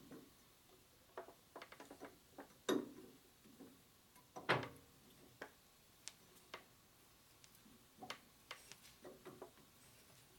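Scattered metallic clicks and taps as a threading die is worked by hand onto a step stud held in a locked lathe chuck, with two louder knocks near the start and around the middle.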